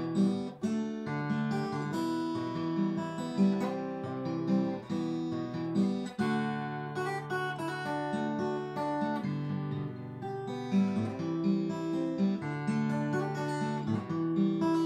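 Unaccompanied steel-string acoustic guitar playing a picked melody over held bass notes, the notes changing about twice a second, with a brief break about six seconds in.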